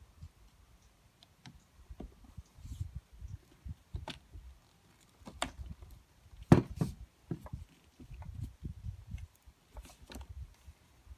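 Angle grinder housing pieces being handled and fitted together by hand: scattered light clicks and knocks over soft handling noise, the loudest knock about six and a half seconds in.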